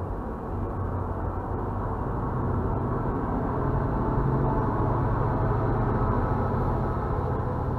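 MBTA commuter rail train rolling past: wheels running over the rails as the coaches go by. The diesel locomotive at the rear follows, and its low engine hum makes the sound louder from about a third of the way in.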